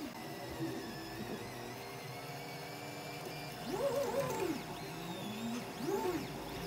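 3D printer's stepper motors whining as the print head moves, the pitch rising and falling in short arcs, loudest about four seconds in and again near six seconds.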